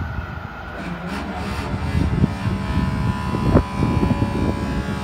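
Level crossing barrier mechanism running as the boom rises, a steady hum over low rumbling, with one sharp knock about three and a half seconds in.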